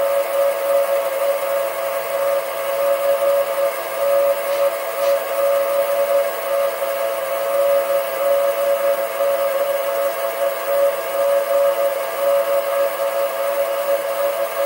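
Sieg SC3 mini-lathe running, a steady high whine from its motor and drive, with the milling cutter spinning in the chuck. The cutter is not yet touching the aluminium, so no cutting sound is heard.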